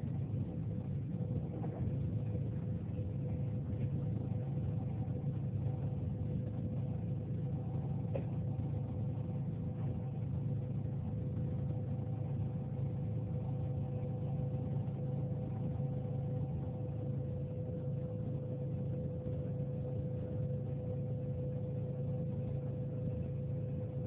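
Jet airliner's engines and airframe heard from inside the cabin during the takeoff roll and initial climb: a steady low rumble with a steady engine tone over it, and a second, higher tone that stops about two-thirds of the way through.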